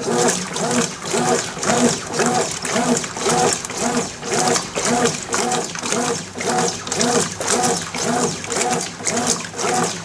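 Consul CWB09AB top-loading washing machine agitating an empty tub of soapy water: the motor hum rises and falls with each stroke while the water sloshes back and forth in a steady rhythm, about twice a second.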